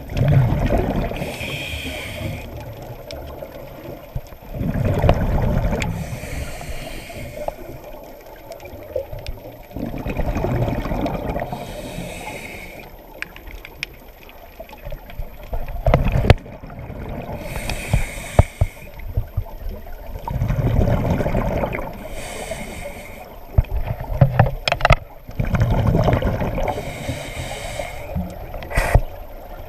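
Scuba breathing recorded underwater through a diver's regulator. A gurgling rush of exhaled bubbles comes about every five seconds, with a short hiss of inhaled air between them and scattered small clicks.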